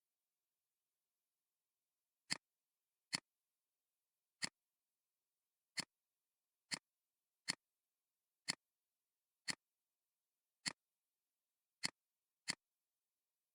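Computer mouse clicking: eleven short, sharp clicks at uneven intervals of roughly a second, with silence between.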